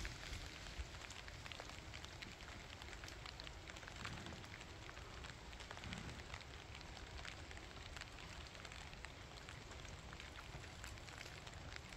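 Steady rain falling, faint, with many small drops ticking.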